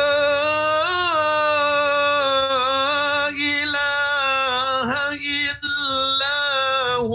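A man reciting the Qur'an in the melodic chanted style of a qari, sustaining one long ornamented phrase on a held pitch with slow turns up and down.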